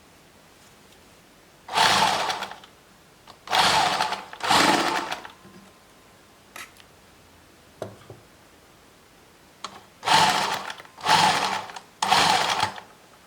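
Sewing machine stitching in six short runs of under a second each, three in quick succession near the start and three more near the end, with a couple of faint clicks in between.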